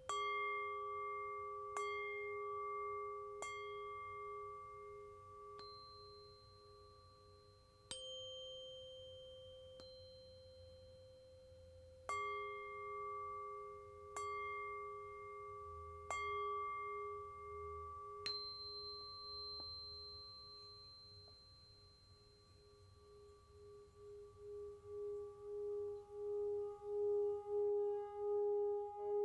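Tibetan singing bowl and tuning forks struck again and again, about nine strikes, each leaving long, pure ringing tones that overlap and fade. Near the end one low bowl tone swells louder with a steady pulsing wobble.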